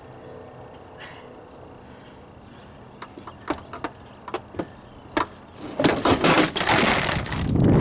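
A video camera falling onto a concrete floor: a few scattered knocks, then a loud clattering crash over the last two seconds, hard enough to smash its viewfinder.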